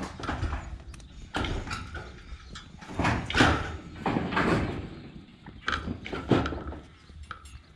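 Sheep moving through the yards: irregular hoof clatter and scuffing with knocks.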